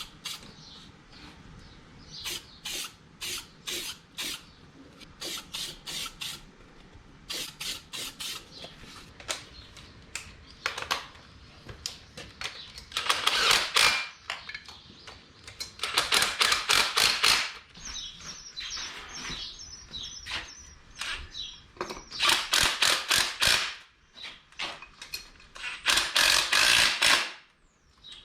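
Aerosol can of weld-through primer shaken in quick rattling bursts and sprayed in hissing bursts of a second or so, several times over.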